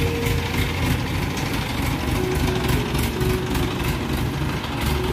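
Diesel engine of an ACE 14XW pick-and-carry crane running steadily with a low rumble as the crane drives along carrying a suspended load.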